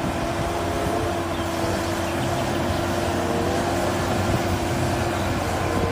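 A motor running steadily, with a constant low hum and a held tone over an even hiss.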